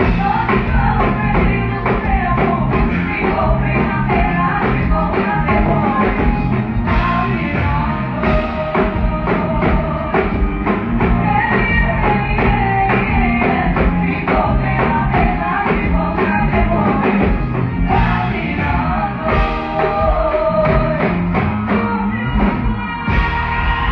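Female vocal duo singing sertanejo live with a full band, loud and continuous, picked up by a phone's microphone with the high end cut off.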